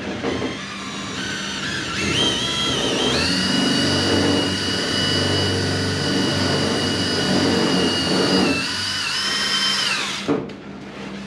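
Electric drill spinning a stirring paddle in a bucket of thick two-part epoxy. It speeds up in steps over the first few seconds, holds a steady whine, then stops about ten seconds in.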